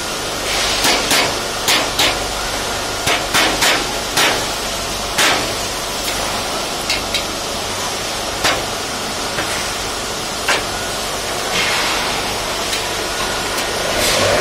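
Mallet blows on a steel boltless rivet shelving frame, knocking a beam's rivets down into the keyhole slots of an upright. There are about a dozen sharp strikes, coming in quick pairs and threes over the first five seconds, then single blows a second or two apart.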